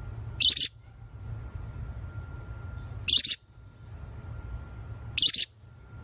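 A featherless parrot gives three short, shrill chirps, each in two quick parts, about every two and a half seconds, over a low steady hum.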